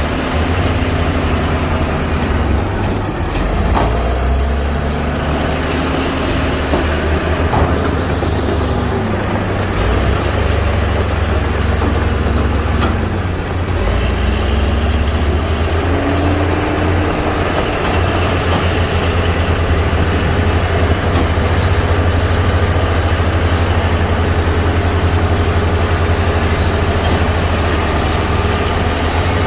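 Diesel engine of a heavy crawler bulldozer running steadily under working load. A whine above it dips in pitch three times in the first half.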